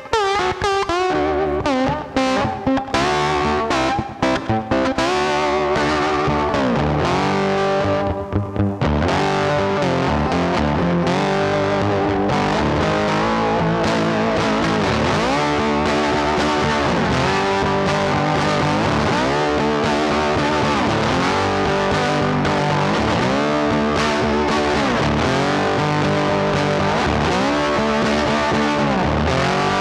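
Background music: distorted electric guitar with effects, with pitch bends and brief breaks in the first few seconds, then a sustained full-band passage that starts to fade near the end.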